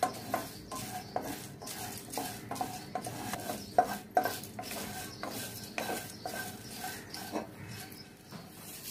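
Wooden spatula stirring green cardamom pods in a nonstick wok: the pods rattle and the spatula scrapes against the pan in irregular clicks, with a couple of sharper knocks about four seconds in.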